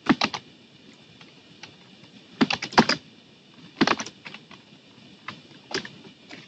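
Typing on a computer keyboard in short bursts of quick keystrokes with pauses between them.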